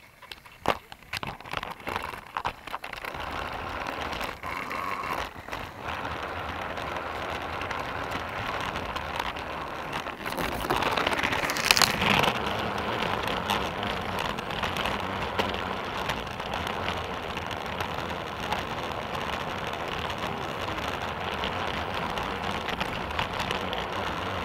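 Motorized toy train running on plastic track, heard from a camera riding on one of its wagons: a steady whirring rattle of motor and wheels, with a few clicks in the first seconds and louder rattling for a couple of seconds near the middle.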